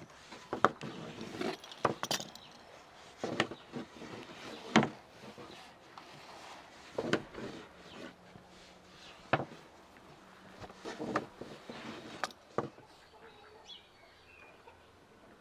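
Metal fluted pastry wheel cutting dough on a wooden board: a dozen or so sharp clicks and knocks at uneven intervals as the wheel rolls and is set against the board.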